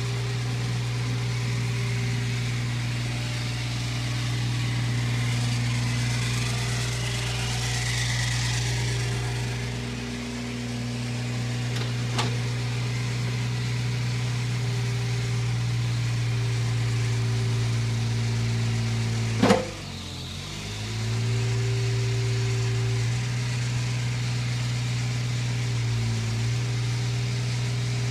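Komatsu PC35MR-2 mini excavator's diesel engine running steadily while the boom, arm and bucket are worked, its pitch sagging briefly now and then as the hydraulics load it. A light click about 12 seconds in, and a loud sharp knock about 19 seconds in, right after which the engine pulls down for a second or two before recovering.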